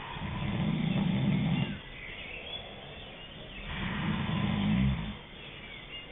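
A person snoring: two low snores, each lasting about a second and a half and about 3.7 seconds apart, with quieter breathing between them.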